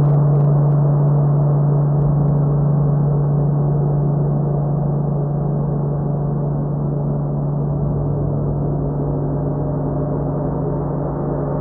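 A sustained gong-like drone in ambient background music: a deep steady tone with many held overtones above it, slowly getting quieter, and a low pulsing joining about eight seconds in.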